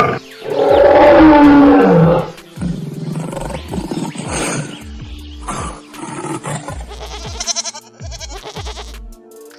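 A large animal roaring once for about two seconds, its pitch falling, over background music. After that, only the music, with a steady low beat.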